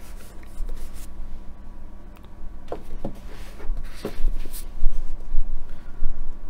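Handling noise as paperback books are swapped on a desk: rustling and a few light clicks, with dull low thumps, loudest in the second half.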